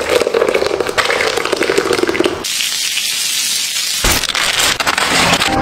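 Wet crackling and spattering of thick batter pouring into a cloth-lined container, then a high, thin hiss. About four seconds in comes a sudden crack followed by rustling as an ear of corn is gripped and snapped from its stalk.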